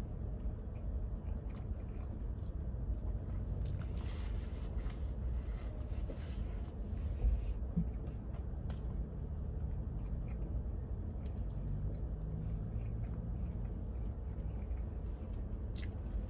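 A man chewing mouthfuls of a shaved roast beef sandwich close to the microphone, with small scattered mouth clicks over a steady low rumble, and a brief knock about seven seconds in.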